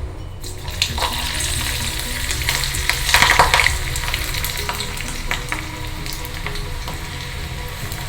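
Onion pakora fritters, onion bound in gram-flour and rice-flour dough, frying in hot oil: a steady sizzle with many sharp crackling pops. It grows louder about three seconds in.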